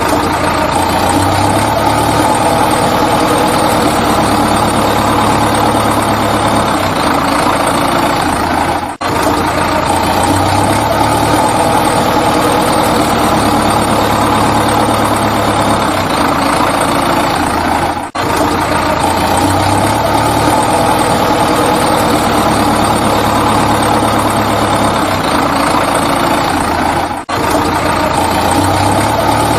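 Heavy vehicle engine running at a steady idle. It is a looped sound-effect track: it repeats the same pattern about every nine seconds, with a brief break at each join.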